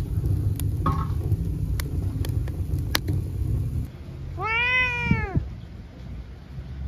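Wood fire crackling, a few sharp pops over a low rumble, then a domestic cat meows once: a single call about a second long that rises and falls in pitch.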